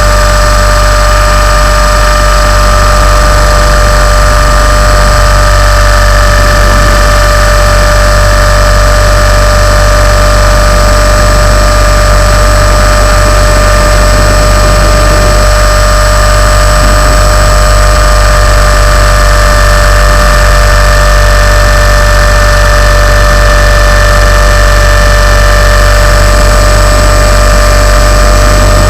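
Tarot 450 electric RC helicopter in flight, picked up by its onboard camera: a loud, steady whine from the brushless motor and main gear, with several fixed tones over the rotor's low rumble, holding an even speed throughout.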